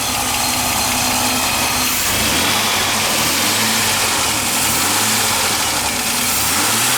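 2003 Chevy Blazer's 4.3-litre V6, warm and idling, with a light, steady knock. The owner suspects a lifter or a rod bearing.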